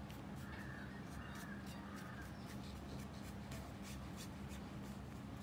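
Paintbrush with chalk paint brushing along the edge of a wooden coaster: faint, short brushing strokes, a few a second, over a steady low hum.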